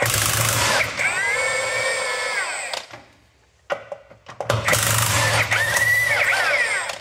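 Milwaukee M18 one-inch cordless impact wrench hammering out the bolts that hold down an excavator's swing motor, in two bursts of about two and a half seconds each. In each burst the motor whine rises as the wrench spins up, holds steady, and drops as the trigger is let go. The bolts are spinning out freely.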